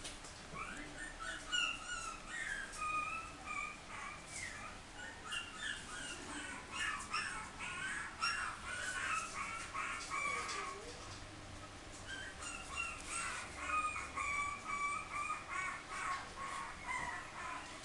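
Puppies whining and yipping in short, high-pitched calls, in two runs with a short lull near the middle.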